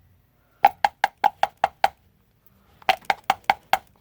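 Quick runs of sharp, evenly spaced taps, a hard plastic pen barrel knocked against a hard surface: about five a second, eight taps and then six, each with a short ringing knock.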